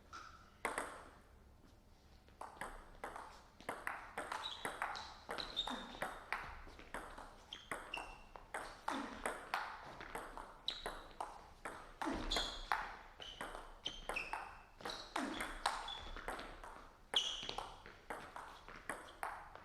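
Table tennis rally: the ball clicking off paddles and the table in a steady run of sharp, ringing hits, about two a second.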